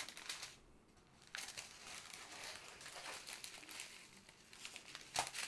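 Thin plastic bags of diamond painting drills crinkling and rustling as a long strip of connected bags is unfolded and spread out by hand, with sharper crinkles about a second and a half in and near the end.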